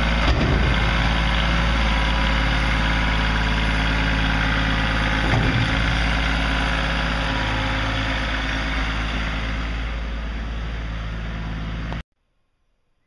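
Compact tractor's engine and PTO-driven Ryetec flail collector running steadily, with a knock just after the start and another about five seconds in. The sound slowly fades as the rig pulls away, then cuts off suddenly near the end.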